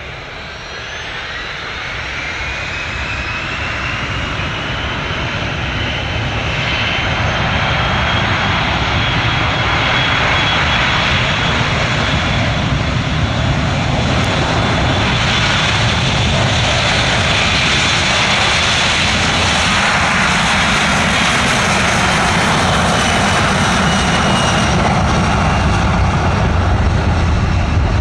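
Boeing 737 Classic's CFM56 turbofan engines spooling up to takeoff thrust. A rising whine climbs over the first few seconds as the engine noise builds, then the whine and the noise hold steady and loud as the jet accelerates down the runway on its takeoff roll.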